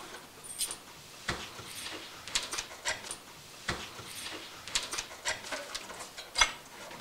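Scattered light knocks and clinks, a dozen or so at irregular intervals, some with a short high ring, from cups, plates and other things being handled on a set coffee table.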